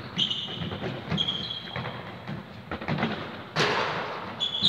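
Indoor football being played on a sports hall floor: the ball thuds off boots and the floor several times, with short squeaks of trainers on the court. The loudest thud comes about three and a half seconds in and echoes around the hall.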